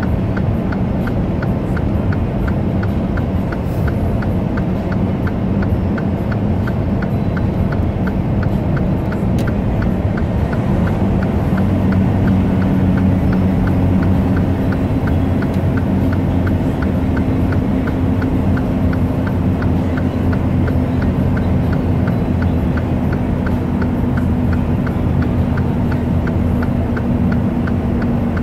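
Steady truck engine and road drone heard inside the cab, with the hazard-light flasher ticking at an even beat, the four-ways left on for the long downhill grade. About twelve seconds in a higher steady engine tone joins and holds.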